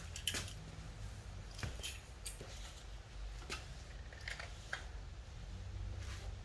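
A 2021 Harley-Davidson Road Glide Special making light, irregular rattling clicks over a low steady rumble.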